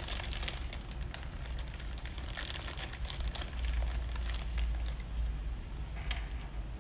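Small clear plastic accessory bags crinkling and rustling as they are handled, with scattered small clicks and crackles, over a low steady rumble.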